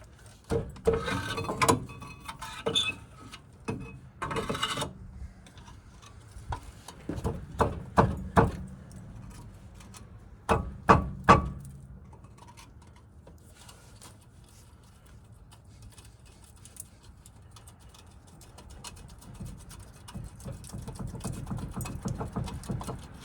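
Metal-on-metal clinks, taps and scraping as a screwdriver is wedged between a worn front brake pad and the rotor to knock the pad off the caliper bracket, in irregular bursts with a few sharp knocks about halfway through.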